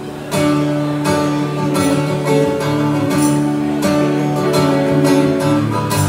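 Live folk-rock band playing: strummed acoustic guitar over bass, drums, electric guitar and violin. The full band comes in loud about a third of a second in, with steady rhythmic strumming.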